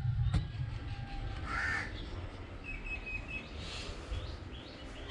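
A crow cawing, one harsh call about one and a half seconds in and fainter calls later, over a steady low rumble.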